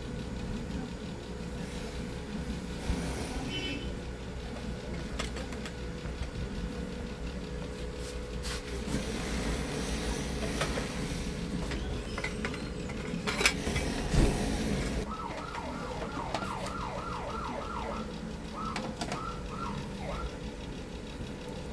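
Small handling noises of wires and a circuit board on a workbench, with a couple of sharp clicks, over a steady hum. About fifteen seconds in, a run of short chirping tones starts, about four a second, breaking off and resuming.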